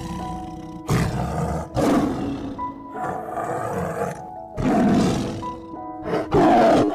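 Background music of steady held notes, over which a large animal gives several loud roaring calls, each about a second long.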